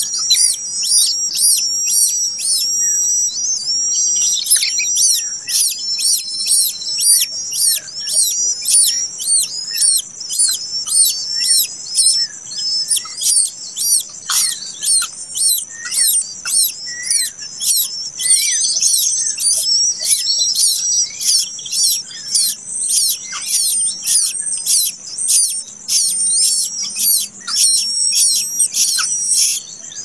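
Nestling birds begging for food: a continuous stream of rapid, high-pitched chirps, several a second.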